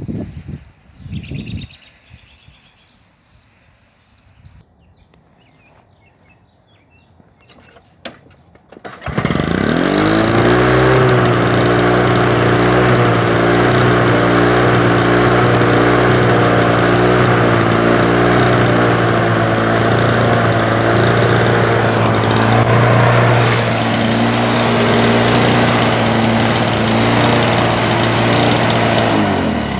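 Vintage Lawn-Boy two-stroke push mower engine starting suddenly about nine seconds in, after a couple of thumps, then revving up and running steadily at a constant speed until it drops off at the very end.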